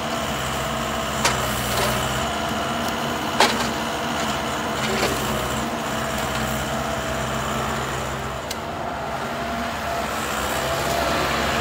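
Wheeled sugar cane loader's engine running steadily, with a few short sharp knocks, the loudest about three seconds in.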